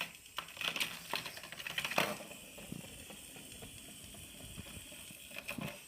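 Plastic toy playset parts clicking and rattling as they are handled, with a cluster of clicks in the first two seconds and a few more near the end, over a faint steady whir.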